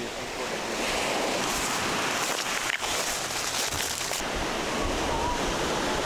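Ocean surf breaking and washing up onto a sandy beach: a continuous rushing that grows louder about a second in and then holds steady.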